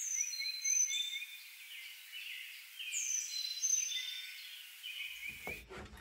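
Carolina chickadee singing its whistled four-note song twice, high-low-high-low, about three seconds apart, with a quick run of softer chirps behind the first song.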